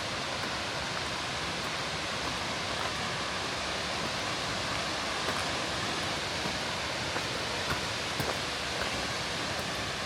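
A flowing river rushing steadily, with a few faint clicks of splashing water scattered through.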